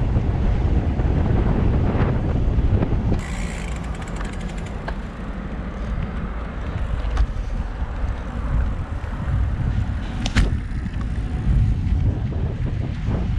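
Wind buffeting a handlebar-mounted camera's microphone and road rumble while riding a road bike, with a few sharp clicks and a brief run of rapid ticking about three seconds in.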